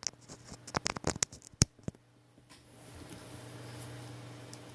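A quick run of small clicks and taps from a smartphone being handled on a work surface, the loudest about one and a half seconds in, followed by a faint steady hum.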